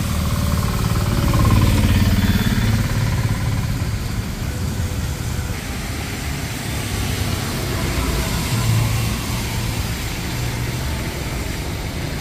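Traffic passing on a rain-soaked road: engines and the hiss of tyres on wet tarmac over a steady rush of rain. The engines are loudest about one to three seconds in as a vehicle passes close, and swell again briefly near the end.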